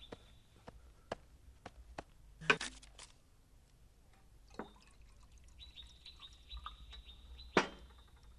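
Water poured from a glass bottle into a cup, with clinks of glass and crockery and a sharp knock near the end.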